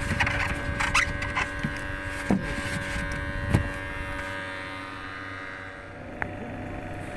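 Boat engine running steadily with a buzzing hum whose note shifts about six seconds in, with a few sharp knocks on the wooden boat, the loudest about three and a half seconds in.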